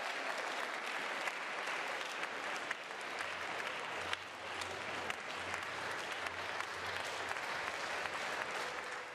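Arena crowd applauding the end of a table tennis match, a steady patter of many hands clapping that fades out at the very end.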